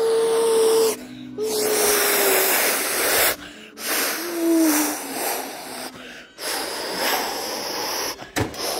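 A child making airplane noises by mouth: long breathy whooshing hisses in three pushes with short pauses between, and a few brief hummed tones, some of them bending.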